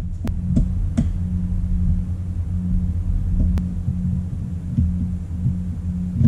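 Steady low hum, with a few light clicks and taps from a laptop being handled during repair, most of them in the first second and one about three and a half seconds in.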